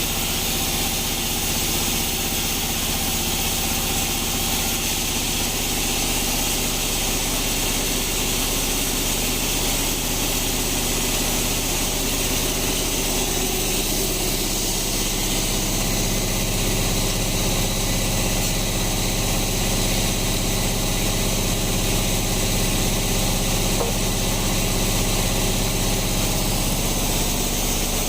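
Sawmill bandsaw machinery running steadily: a low engine drone with a hiss above it. The drone's note shifts slightly about halfway through.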